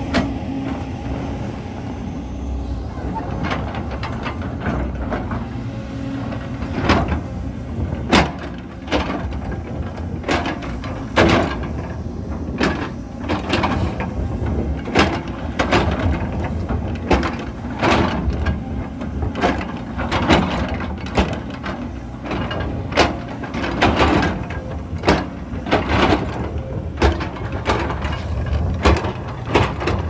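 Tracked JCB excavator's diesel engine running steadily under load while the bucket teeth scrape and knock against layered stone, giving repeated sharp scrapes and knocks about once or twice a second from a few seconds in.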